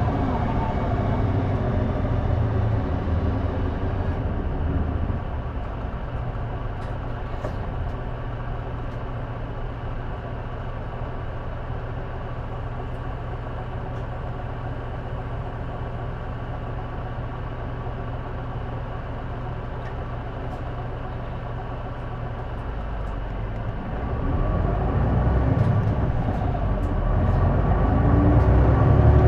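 City bus diesel engine of a J-Bus, heard from inside the cabin. The engine note eases off over the first few seconds, runs steadily and lower, then rises and grows louder from about 24 seconds in.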